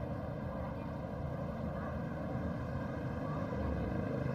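Steady low rumble of street traffic, vehicle engines running, growing a little louder near the end.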